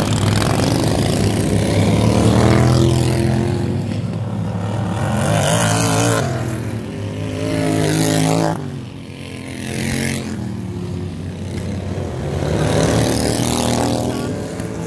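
Racing lawn mowers' small engines running hard on a dirt track, their pitch and loudness rising and falling as the mowers go past, with several passes.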